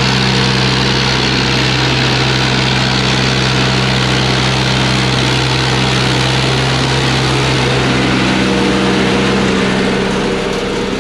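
Heavy equipment's diesel engine running steadily with a low, even hum; the hum eases off about nine seconds in.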